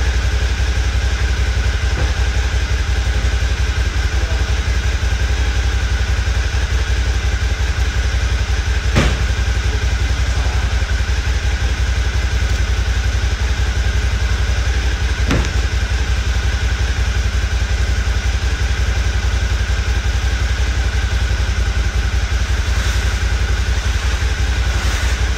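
Suzuki V-Strom DL650's 645 cc V-twin idling steadily while it warms up after a spell of not being started. There are two brief knocks, about nine and fifteen seconds in.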